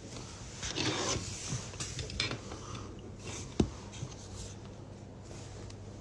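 Handling noise: rustling and a few light clicks and knocks as an object is picked up and turned over, over a low steady hum.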